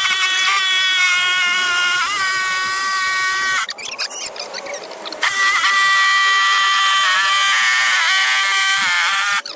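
Electric power tool's motor whining at high speed, its pitch dipping briefly a few times, with a break of about a second and a half in the middle.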